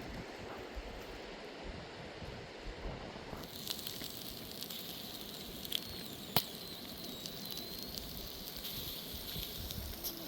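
Steady rush of water, then about three and a half seconds in a wood fire crackling with sharp pops and a thin, wavering high whistle.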